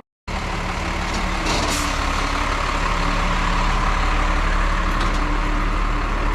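Large truck engine running steadily, a loud even hum, starting abruptly a moment in.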